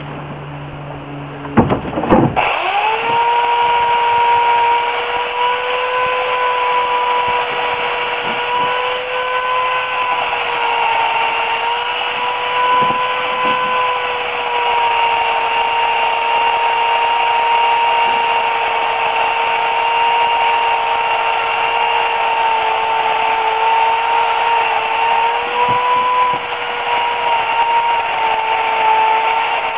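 Remington Limb N Trim RM1415A electric chainsaw with an 8-amp motor, switched on about two seconds in and spinning up quickly. It then runs with a steady high whine that dips slightly in pitch now and then as the chain cuts into the tree.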